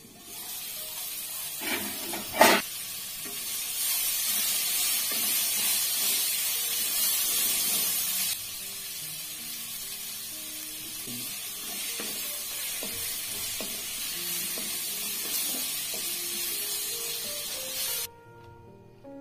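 Sliced onions and green chillies sizzling in hot oil in a frying pan as they are stirred with a spatula, with one sharp knock about two and a half seconds in. The sizzling stops shortly before the end.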